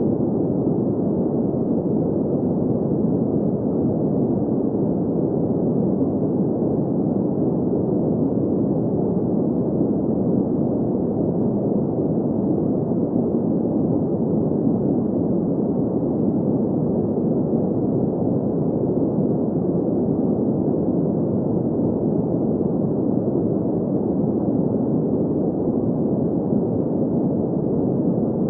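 Steady green noise for sleep: an even, unbroken hiss centred in the low-middle range, with no highs.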